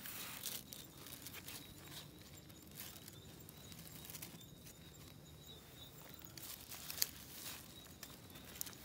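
Faint crinkling of plastic bags and small clicks of a knife as food is handled and cut, in scattered bursts, busiest near the start and again around seven seconds in.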